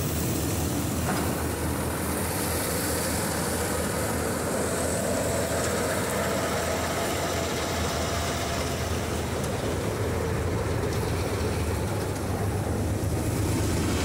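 Tractor-driven combine harvester running steadily while it cuts and threshes crop: the John Deere 5310 tractor's diesel engine drones under load together with the combine's machinery. It grows slightly louder near the end as the machine passes close by.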